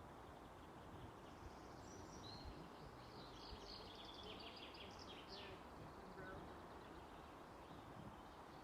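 Near silence with faint outdoor air, and faint high-pitched rapid chirping of a small bird for a few seconds in the middle.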